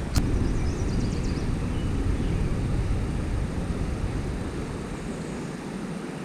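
Steady low rumble of water flowing out of a lake spillway, mixed with wind buffeting the microphone, easing about five seconds in. A single sharp click sounds just after the start.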